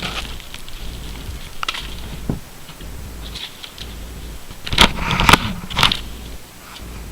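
Packaging and a small plastic item being handled: scattered crackles and clicks, with a burst of louder sharp crackles about five seconds in.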